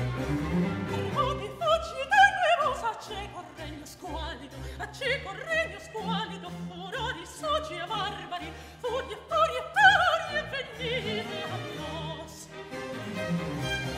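Soprano singing a baroque aria with a small baroque band of bowed strings. Her line has vibrato and two fast runs that fall in pitch, one near the start and one about two-thirds of the way through.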